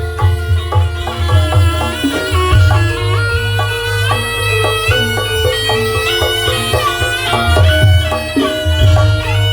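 Javanese barongan accompaniment music: a reedy wind melody moving in steps over a held drone, with a deep bass and steady drum strikes.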